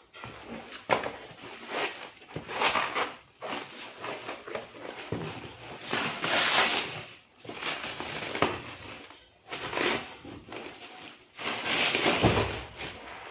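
Clear plastic stretch wrap being pulled and torn off a cardboard parcel, crinkling and rustling in irregular bursts.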